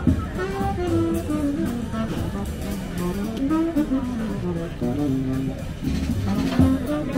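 Jazz music with guitar, and a melody line stepping from note to note over a steady low accompaniment.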